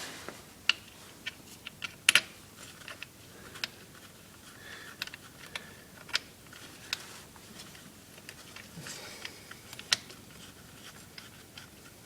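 Irregular light clicks and taps of a wrench and metal parts as the 12 mm bolts are fitted into an ATV's rear brake caliper. The loudest is a quick double click about two seconds in.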